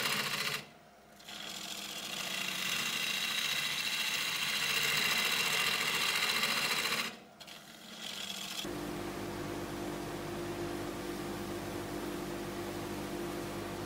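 Turning gouge cutting the inside of a spinning willow bowl on a wood lathe: a steady, shrill scraping hiss that drops away twice briefly. About nine seconds in, the sound changes abruptly to a steadier hum with a low tone as the spinning bowl is sanded by hand.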